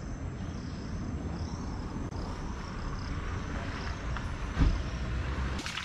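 Outdoor ambience picked up by a head-mounted action camera's microphone: a low steady rumble with a faint high hum above it, and a single thump about four and a half seconds in.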